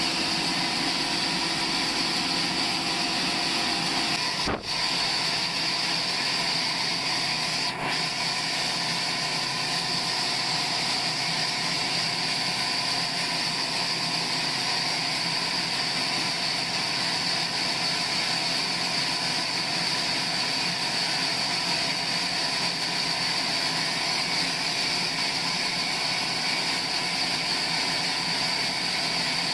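Sawmill machinery running steadily with a continuous mechanical drone and a steady high whine. It drops out briefly twice within the first eight seconds.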